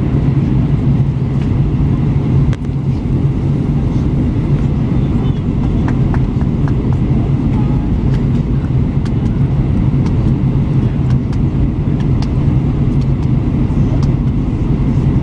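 Steady cabin drone of an Airbus A321 in flight, heard from a window seat: engine and airflow noise with a steady low hum underneath.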